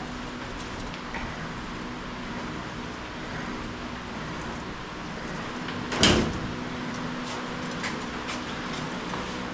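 Steady rolling, scraping noise of sheet metal being worked, over a steady low hum, with one sharp knock about six seconds in. The scraping is gritty, which those working take for debris on a surface that was not wiped clean.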